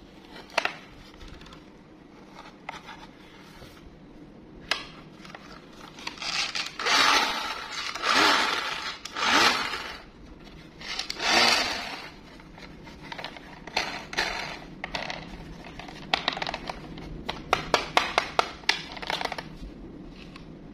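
A plastic toy train handled with gloved hands over a cardboard box: several loud rubbing and scraping noises in the middle, then a quick run of sharp plastic clicks near the end.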